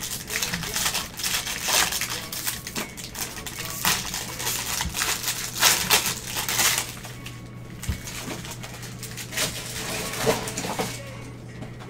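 Foil trading-card pack wrappers being crinkled and torn open by hand, a run of crackling rustles that is loudest over the first seven seconds, eases off, then returns briefly near the end.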